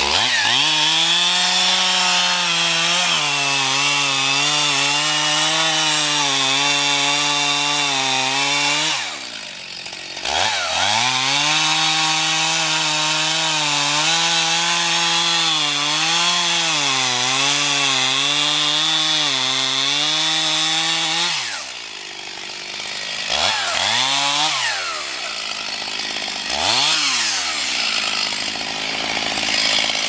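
Gasoline chainsaw cutting into the base of a birch trunk, the engine steady under load. The throttle eases off about nine seconds in and again about twenty-one seconds in, then the saw is revved several times in short blips near the end.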